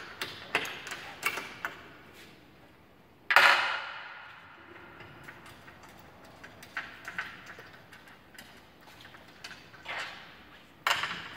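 Hand tools clicking and clanking on the metal head of a Riello two-stage diesel burner as its side bolts are undone. There is a quick run of light clicks at first, one louder ringing clank about three seconds in, scattered soft ticks, and a couple more clanks near the end.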